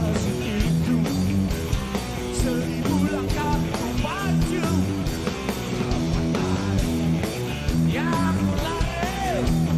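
Background music: a rock-style song with guitar and a steady beat, and a singing voice coming in around the middle and again near the end.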